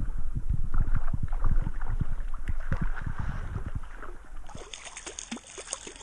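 Stream water splashing and sloshing as a hooked trout thrashes at the surface and is brought to a landing net, with many low thumps. It is busiest over the first few seconds and quieter near the end.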